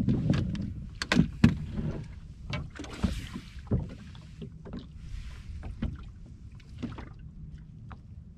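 Sharp knocks and clatter on a small fishing boat's deck as a just-caught canary rockfish is handled and unhooked, the loudest knocks coming about a second in, over a low steady hum.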